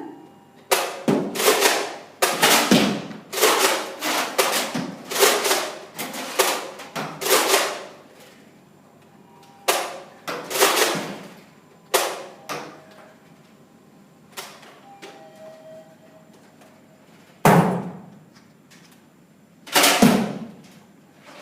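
A rapid series of loud knocks and thumps, about a dozen in the first seven seconds. A few more follow spaced out, then two single heavy thuds near the end.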